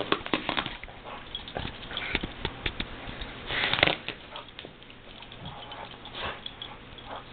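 Pit bull chewing and tugging at a plush toy, with irregular clicks and scuffs of teeth and paws on the fabric and a longer rough burst about three and a half seconds in.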